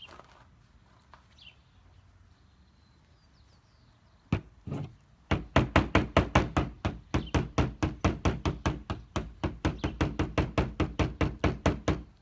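Two single knocks on a hard surface, then a fast, even run of knocks, about six a second, lasting several seconds and stopping abruptly.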